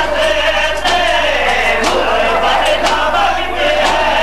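A crowd of men chanting a Muharram noha, a Shia lament, in unison, with sharp slaps about once a second: hands striking chests in matam, keeping the beat.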